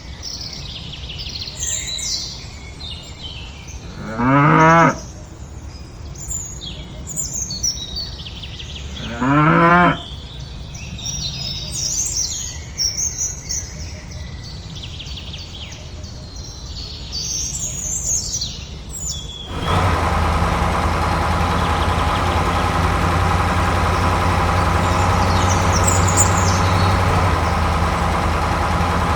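Cow mooing twice, each moo about a second long, over small birds chirping. About two-thirds of the way in, a steady engine drone starts abruptly and keeps running at idle.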